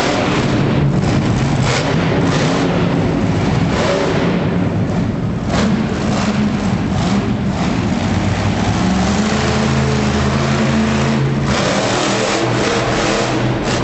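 Monster truck engine running loud.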